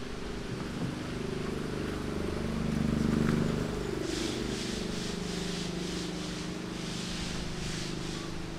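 A motor vehicle's engine running, a low hum that swells about three seconds in and then holds steady. From about four seconds in, a rhythm of short hissing pulses, roughly two a second, sits above it.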